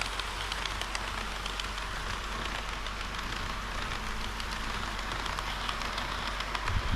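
Model train running on the layout track: a steady rolling hiss with faint scattered clicks from the wheels.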